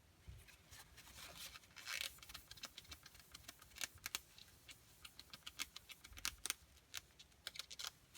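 Faint, irregular small clicks and short scratchy rubs from a horn fountain pen being handled.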